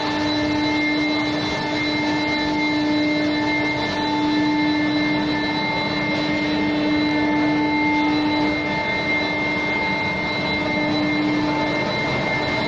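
Steel bar induction heat treatment furnace line running: a steady machinery noise with several steady humming and whining tones.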